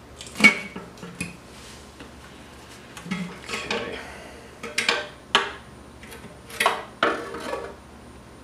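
Rusty steel oil pan of a Subaru EJ255 engine being worked loose by hand and lifted off the block. Several sharp metal clanks and knocks, with scraping in between.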